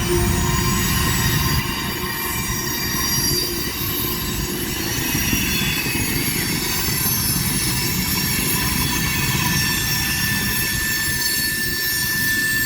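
A train rolling past, its wheels squealing against the rails: several high, steady squealing tones over a continuous low rumble.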